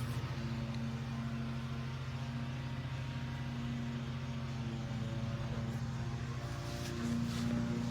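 A steady low mechanical hum that holds an even pitch throughout.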